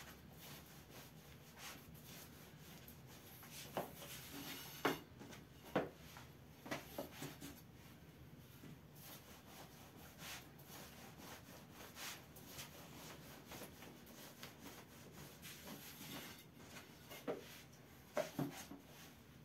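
Long thin wooden rolling pin rolling out a thin sheet of dough on a floured wooden board: soft, faint rubbing strokes, with a few sharp knocks of the pin against the board about four to seven seconds in and again near the end.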